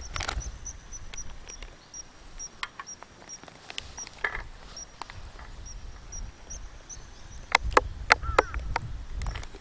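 A few light rustles of a plastic zip-top bag being handled, then from about 7.5 seconds in a run of loud, sharp glugs as ponzu pours from a narrow-necked plastic bottle into the bag. A faint high chirp repeats steadily in the background until just before the pouring.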